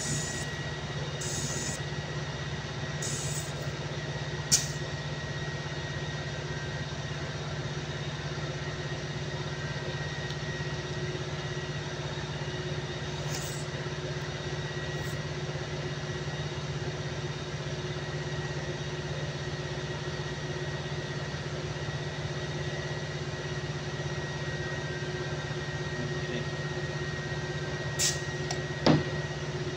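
Steady low machinery hum, with several short hisses of compressed air and a few sharp metallic clicks from a pneumatic valve spring compressor worked on a diesel cylinder head. The loudest clicks come about four seconds in and twice near the end.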